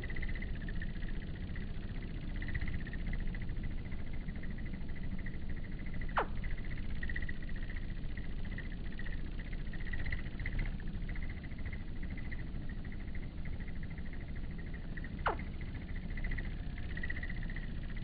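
Crickets chirring steadily at one pitch, in a pulsing rhythm, over a low steady rumble. Two quick whistles fall steeply in pitch, one about six seconds in and one near the end.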